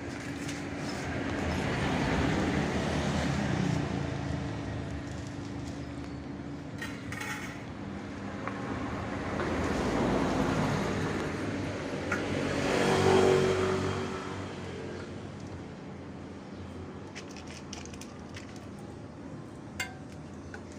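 Road traffic passing: vehicles swell and fade several times, the loudest about thirteen seconds in with a steady engine note. A single sharp click sounds near the end.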